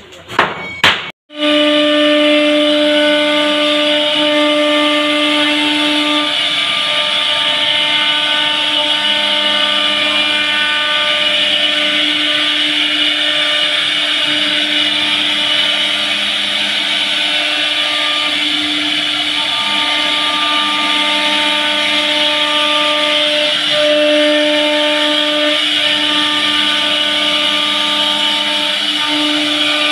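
CNC router spindle running with a steady whine while its bit routes a groove into a solid wood door panel, with a hiss from the cutting. A few sharp clicks come just before the routing starts, about a second in.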